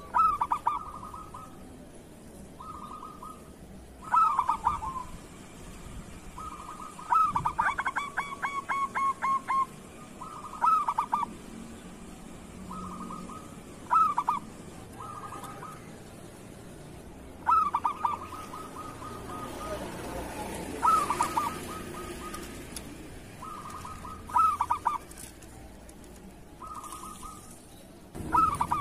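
Zebra dove (perkutut) cooing: short rolling coos repeated every couple of seconds, with one longer phrase of rapid staccato notes about seven seconds in.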